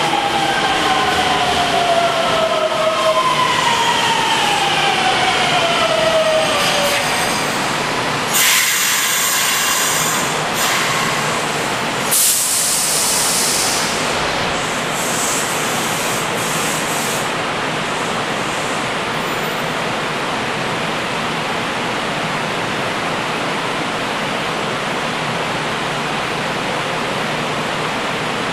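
Kintetsu electric train's motor whine falling in pitch over the first six seconds or so as it slows to a stop at an underground platform. Two short bursts of air hiss follow, about 8 and 12 seconds in, and then a steady rumble of the standing train and the station.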